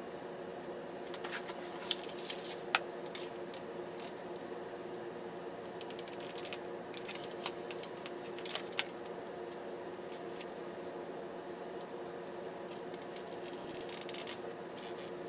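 Scattered small clicks and light rattles of hand tools being handled while hunting for a screwdriver bit small enough for a tiny screw, over a steady low hum. The sharpest click comes almost three seconds in.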